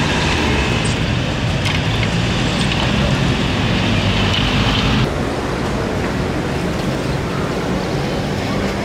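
Street traffic: vehicle engines running and road noise, with the sound changing abruptly about five seconds in.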